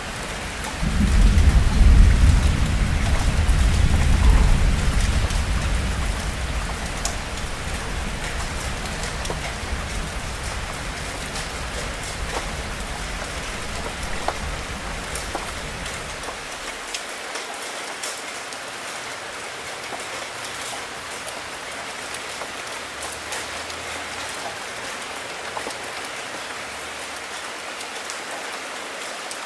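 Steady rain falling and splashing on hard surfaces, with scattered individual drip ticks. A long low roll of thunder swells about a second in and fades away over the next fifteen seconds.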